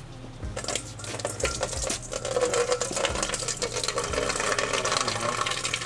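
A thin stream of engine coolant drains from under the car and splashes steadily into a stainless steel bowl, a fizzy spatter against the metal. It starts about a second in.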